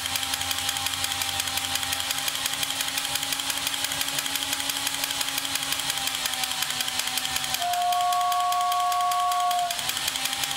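Battery-powered toy Christmas locomotive (Echo 'The Classic Rail') running under load on the bench: its motor and chuff mechanism make a fast, even rattle with a faint steady hum. About eight seconds in, its built-in whistle blows a steady two-note tone for about two seconds.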